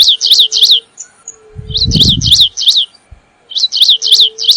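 Stripe-tailed yellow-finch (canário-rasteiro, Sicalis citrina) singing: three short high phrases, each of five or six quick sweeping notes, repeated about every two seconds.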